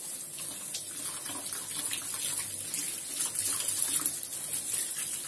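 Water running from a kitchen tap into a stainless steel sink, splashing over gloved hands that are rinsed and rubbed under the stream. It is a steady rush with small irregular splashes.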